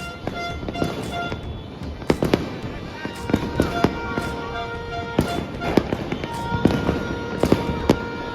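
New Year's Eve fireworks and firecrackers going off in an irregular string of sharp bangs, several a second at times, with the loudest cracks in the second half. Music plays underneath.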